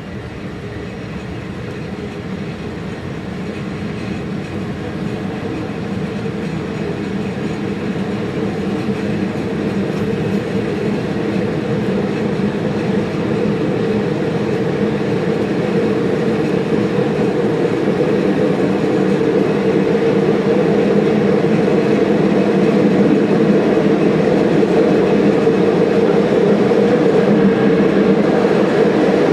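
Passenger train running on the rails with a steady rumble that grows gradually louder, as a train does when picking up speed.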